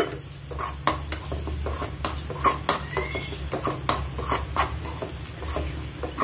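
Metal spoon stirring spices in a metal pan, scraping and knocking against the pan in irregular clicks, several a second.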